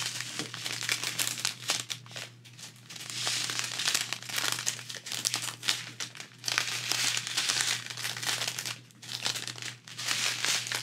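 Thin plastic zip-lock bags of resin diamond-painting drills crinkling as a strand of them is handled and turned over, the crackle swelling and fading in waves.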